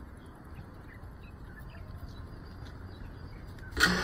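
Quiet outdoor ambience with faint chirping. Near the end the FPV drone's motors start suddenly and settle into a steady idle hum, armed on the ground before take-off.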